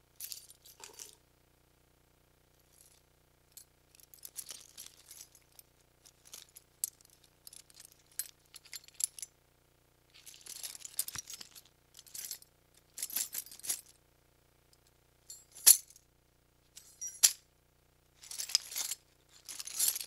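A bunch of metal keys on a key ring jingling in a series of short shakes with pauses between them, plus a couple of single sharp clinks in the second half.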